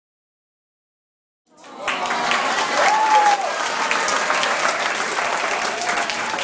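Silence, then about a second and a half in a crowd fades in and keeps applauding steadily, with a few voices faintly audible in the clapping.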